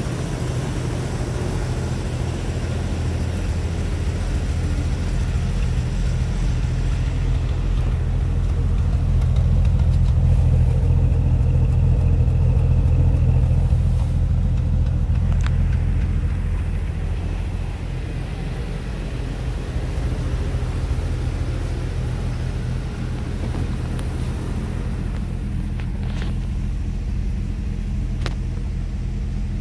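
1997 Jeep Grand Cherokee's 4.0-litre straight-six engine idling steadily, louder for several seconds in the middle. A few faint clicks near the end.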